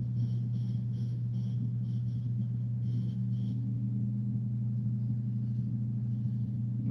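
Steady low electrical hum throughout. Over it, a felt-tip marker squeaks across paper in quick back-and-forth colouring strokes, two to three a second, stopping about halfway through.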